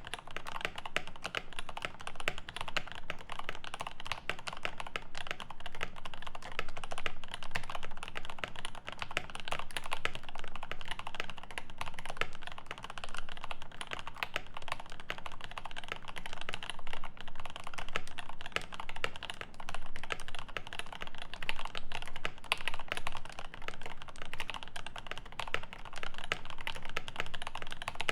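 Grid 650 mechanical keyboard with lubed Alpaca V2 linear switches on a 4 mm aluminium plate and GMK keycaps, typed on fast and continuously: a dense, unbroken run of keystroke clacks.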